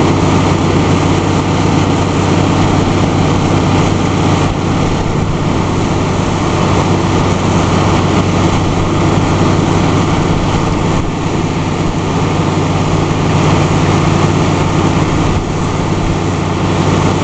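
Tiger Baler greenhouse poly-film baler running, a loud steady mechanical drone with a low hum that holds without change.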